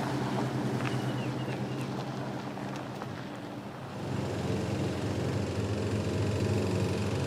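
A pickup truck's engine running as it drives away, easing off over the first few seconds. From about four seconds in, the small engine of a gasoline walk-behind push mower runs steadily and louder.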